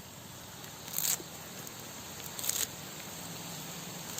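Onions and green chillies frying in coconut oil in a bronze uruli, sizzling faintly, with two short crackling spurts about one and two and a half seconds in as curry leaves hit the hot oil.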